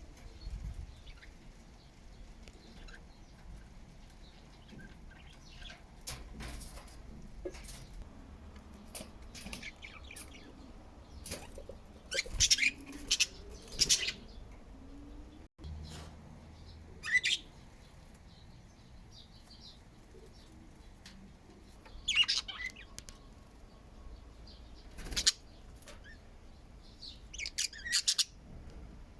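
Pet budgerigars chirping and chattering, with soft twittering underneath and several clusters of loud, sharp high chirps.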